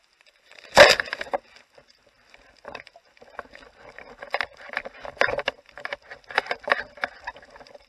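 Underwater knocking and handling noise from a diver moving along a reef: one loud, sharp knock about a second in, then irregular clicks, taps and short rushes of water noise.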